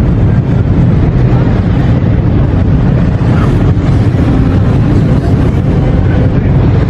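Loud, steady low rumble with wind buffeting the microphone.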